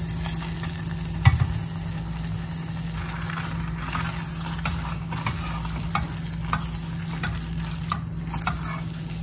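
Silicone spatula stirring and folding spaghetti into thick tomato sauce in a pot, with short, repeated wet scraping strokes. A single sharp knock comes about a second in, and a steady low hum runs underneath.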